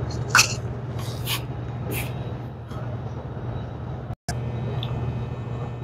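Steady low machine hum, with a few short scraping, rustling handling noises from gloved hands working on a Flojet syrup pump in the first two seconds. The sound cuts out for an instant about four seconds in.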